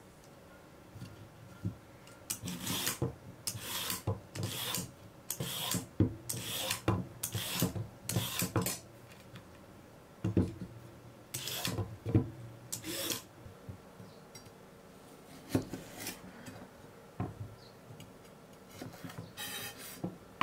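Carrot being peeled with a vegetable peeler: a run of short, quick scraping strokes, about three every two seconds, which stop partway through. A few light knocks on a wooden cutting board follow.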